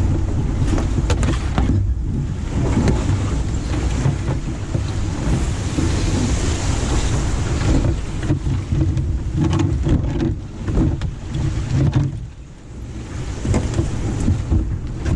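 Wind buffeting the microphone in gusts, over a steady rushing hiss, with a few light knocks.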